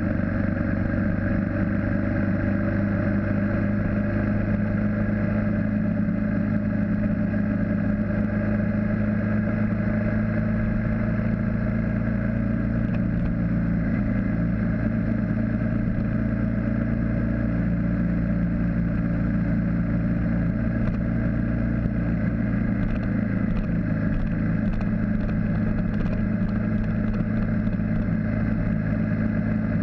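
BMW G650GS single-cylinder motorcycle engine running steadily at cruising speed, with wind and road noise.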